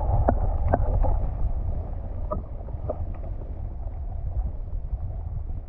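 Wind buffeting the microphone, a steady low rumble, with a few scattered faint clicks. A mid-pitched rushing sound in the first second fades out.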